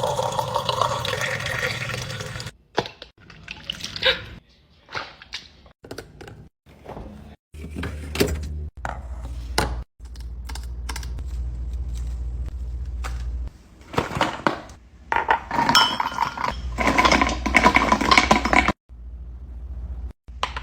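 Containers and dishes being handled and set down, with clinks and thunks, in a string of short clips that cut off abruptly one after another.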